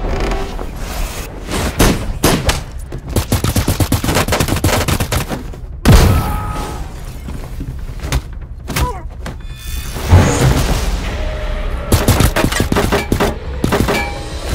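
Automatic rifle fire in several rapid bursts, with two heavy bangs about six and ten seconds in.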